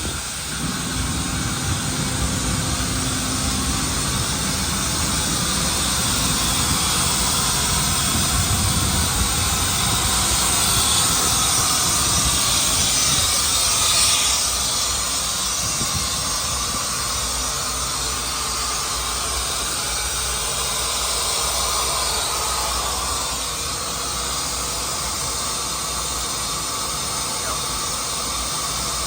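Jet aircraft engines running on the airfield: a steady loud hiss that slowly swells to a peak about halfway through and then eases off.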